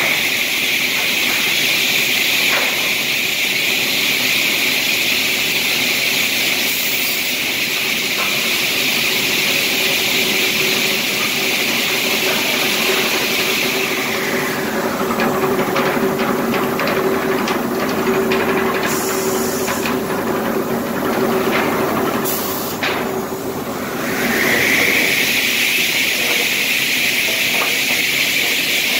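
Retro C component saw line running: a steady high rushing whine of the spinning circular saw blades over a steady motor hum. Midway the whine fades out for about ten seconds while boards knock and clatter along the chain conveyors, then it rises back up.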